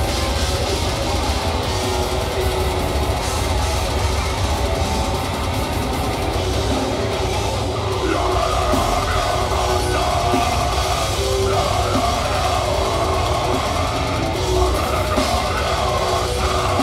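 Deathcore band playing live, with distorted guitars, bass and pounding drums. Harsh screamed vocals come in over the band about halfway through.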